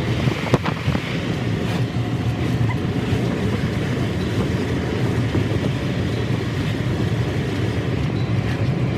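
Steady engine and tyre noise heard from inside the cabin of a car driving at road speed, with one short click about half a second in.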